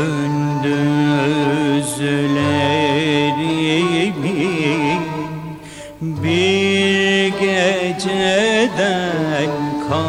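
Turkish classical music song in makam Hicaz: a slow melody of held, ornamented notes that dips briefly about six seconds in and then resumes.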